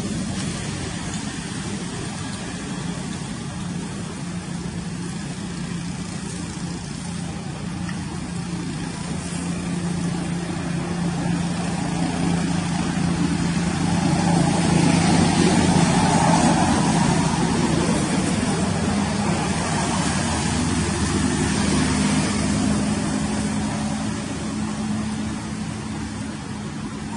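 A motor vehicle's engine running with a steady low hum, growing louder toward the middle and then fading.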